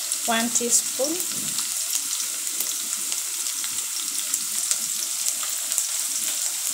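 Chopped red onions frying in hot cooking oil in a stainless steel pot, sizzling steadily with frequent small crackles.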